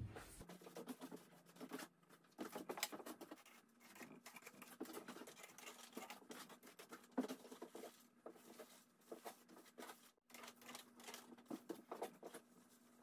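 Faint, irregular rustling and scratching of a thin sheet of bamboo paper being smoothed and rubbed by hand, with a faint steady hum underneath.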